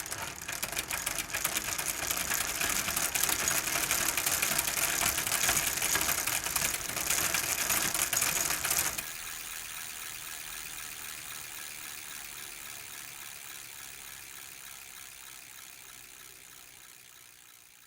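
Bicycle freewheel ratchet ticking rapidly. It is loud for about half the time, drops suddenly to a quieter ticking, and fades slowly.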